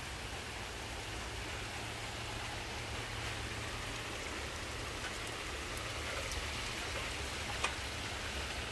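Steady rain falling, an even hiss, with one faint click near the end.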